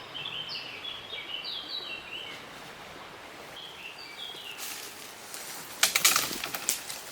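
A small songbird twittering in short chirps, then a burst of loud cracking and rustling just before six seconds in.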